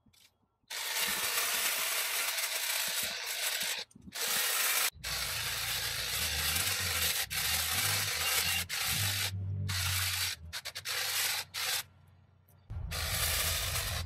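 Powered hedge trimmer cutting through an overgrown hedge, its reciprocating blades chattering through the branches. It runs in long stretches that stop and start several times as the trigger is released.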